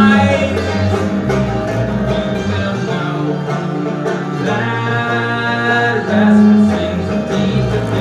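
Banjo and double bass playing together: the banjo picks a steady run of notes while the double bass, played with a bow, holds long sustained notes.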